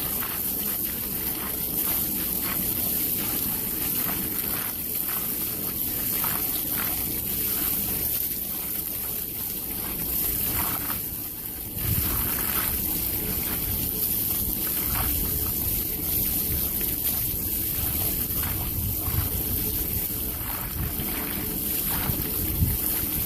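Water sprayed from a hose onto a machine's switch box: a steady rushing and splashing that gets fuller and louder about halfway through.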